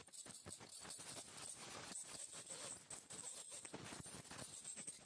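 Ultrasonic dental scaler tip working tartar off a dog's teeth: faint, rapid, irregular clicking and scratching over a steady high-pitched hiss.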